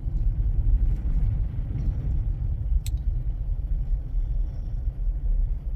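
Steady low rumble of a vehicle heard from inside the cabin while driving on a snowy road, with one sharp click about three seconds in.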